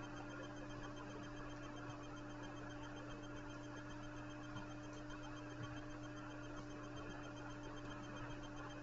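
Steady low electrical hum over faint hiss, with a few faint soft ticks.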